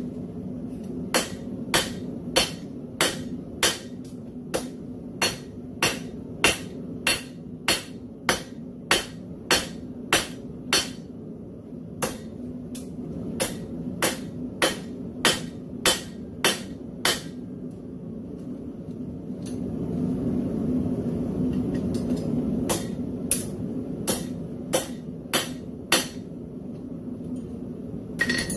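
Hand hammer striking a red-hot railroad spike on a steel anvil, forging its split halves open into a cross. The blows come in steady runs of a little under two a second, with pauses near the middle and in the last third.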